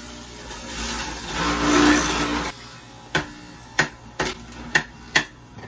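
Electric juicer motor running and grinding celery fed down the chute, the shredding noise swelling and then stopping abruptly about halfway through. Five sharp knocks follow.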